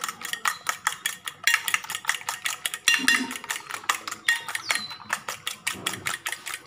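A metal fork beating eggs in a bowl, clinking against the sides in quick, rapid strokes, several a second.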